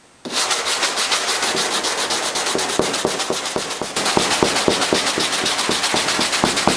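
A small rubber sanding block with 180-grit sandpaper scrubbed by hand in quick, even back-and-forth strokes over a cured fiberglass mat and resin repair, rasping as it cuts down stray fibers and the built-up layers. It starts suddenly about a quarter second in and gets a little louder about halfway through.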